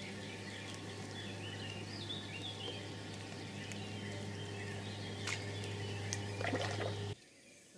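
Outdoor ambience of small birds chirping and singing over a low, steady hum. Everything cuts off suddenly near the end.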